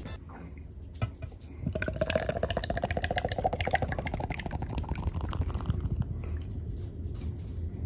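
Beer being poured into a glass, starting about two seconds in, the pitch of the pour rising steadily as the glass fills.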